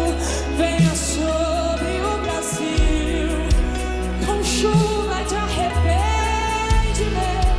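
Gospel worship song: singing over a band, with a steady bass and a regular drum beat.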